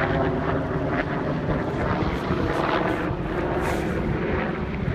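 An engine running steadily with a low, evenly pulsing sound.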